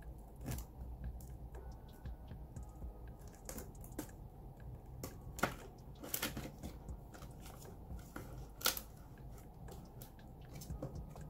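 Plastic pages and zip cash envelopes of a ring binder being handled and turned: light rustling with scattered sharp clicks, two of them louder, about halfway and a little after three quarters of the way.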